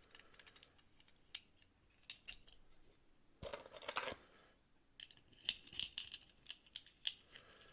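Faint small metallic clicks and scrapes of lockpicking tools working inside an eight-lever padlock, turning the bolt to lock it again. A short cluster of taps comes a little over three seconds in, and a quick run of sharp ticks near the end.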